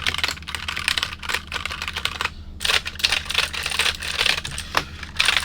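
Fast typing on a keyboard: a quick run of clicking keystrokes, with a brief pause a little over two seconds in before the typing picks up again in dense runs.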